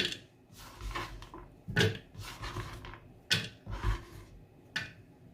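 Scattered knocks and light clatter as chopped bitter kola and ginger pieces are tipped and scraped into a blender jar.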